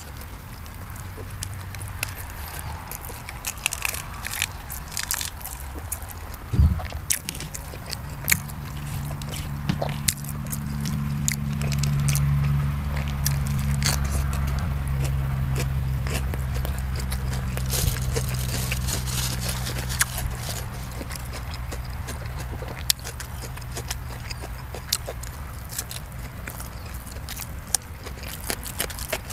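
Close-up mouth sounds of a person eating sausage and fresh lettuce: wet chewing with many sharp crisp crunches and clicks. A heavier thump comes about a quarter of the way in. After that a low engine hum rises in the background, peaks, and slowly fades near the end.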